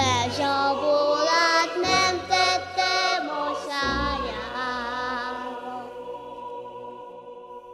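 Orchestral song passage: voices sing long, wavering notes over a sustained orchestral accompaniment. It fades toward the end to a single held high note.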